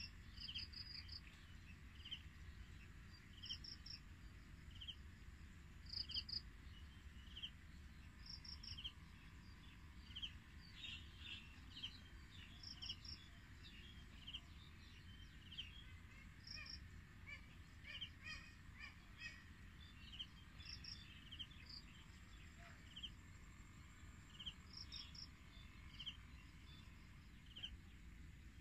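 Faint rural insect and bird calls: short high chirps repeating about once a second, a higher double chirp every two to three seconds, and scattered bird chirping in the middle, over a low steady rumble.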